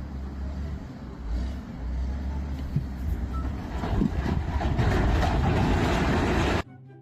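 Heavy machinery running: a strong low engine rumble under a rough, noisy clatter, which grows louder through the clip and cuts off abruptly near the end.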